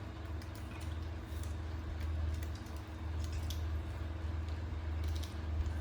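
Scattered small clicks and crunches over a steady low hum.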